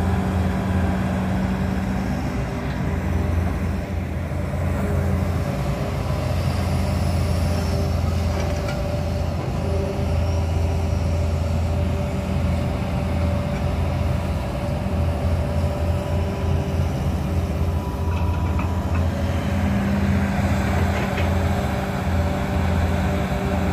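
Diesel engine of a Hitachi Zaxis 200 hydraulic excavator running steadily under working load as it digs soil, a continuous low hum with steady higher tones over it.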